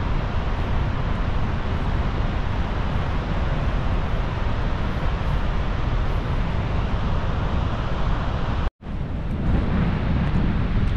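Steady loud roar of rushing water mixed with wind on the microphone. It drops out for an instant about nine seconds in, at a cut, then goes on with wind buffeting the microphone.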